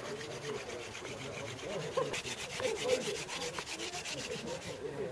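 Hand drill for friction fire: a wooden spindle spun back and forth between the palms, its tip grinding into a wooden fireboard with a fast, even, rhythmic scraping.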